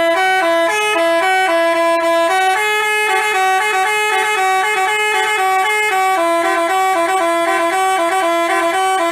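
Basuri telolet bus horn playing a continuous multi-tone melody, stepping between a few notes in a repeating tune.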